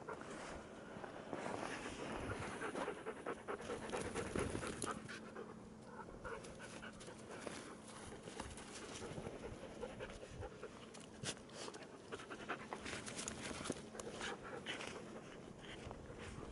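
Alaskan malamute panting, faint and quick, with a few light clicks scattered through the second half.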